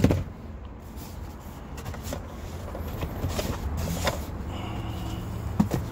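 A sharp click at the start, then faint clicks and rustling as items are handled in an open car glove box, over a steady low rumble.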